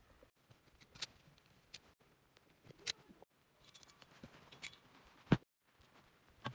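Faint scattered clicks and handling noises of small hand work on the encoder's wiring loom and its Deutsch connector, with one sharp click about five seconds in.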